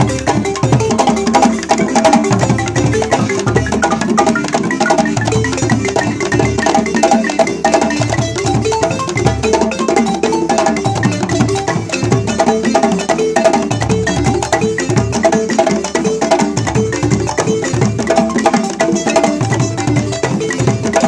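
Balafon (West African wooden xylophone) played in fast, dense runs over djembe hand-drum strokes, as traditional Burkinabè percussion music.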